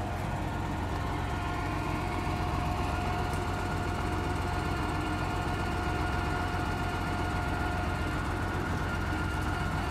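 Truck engine running steadily to drive a truck-mounted hydraulic crane, with a steady whine from the crane's hydraulics as the boom lowers its load; part of the whine stops near the end.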